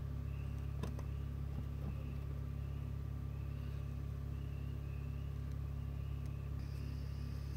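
A steady low mechanical hum with a few constant tones in it, and a faint high chirp repeating about every half second.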